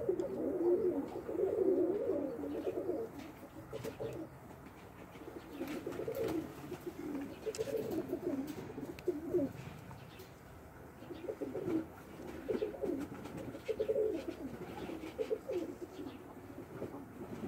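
Domestic pigeon cooing in repeated warbling phrases, most continuous in the first few seconds, then in shorter bouts with pauses between.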